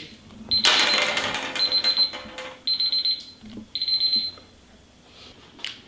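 Electronic timer alarm beeping in rapid high pulses, in about four bursts, marking the end of the task's time limit. A louder wider noise sounds together with the first couple of seconds of beeping.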